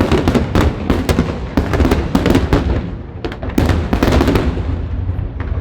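Fireworks going off in rapid succession: many sharp cracks and pops, some in quick clusters, over a continuous rumble of blasts.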